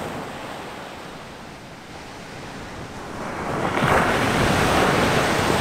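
Ocean surf on a beach: a low wash of water at first, then a wave breaks about three to four seconds in and its hiss grows louder.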